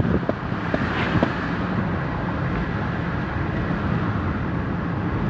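Steady rumble of a moving vehicle heard from on board: engine, tyre and wind noise blended together, with a few light knocks in the first second or so.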